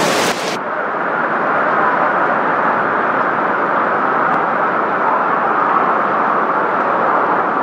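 Severe storm: wind and heavy rain beating on a tent roof, a steady loud roar. The high hiss drops away suddenly about half a second in, leaving a dense, lower roar.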